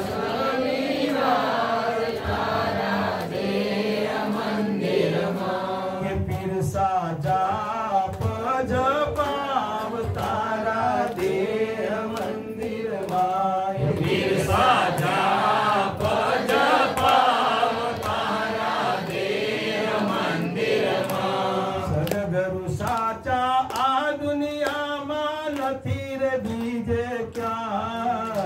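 Men's voices chanting a devotional hymn through microphones, a long sung recitation that runs on without a break.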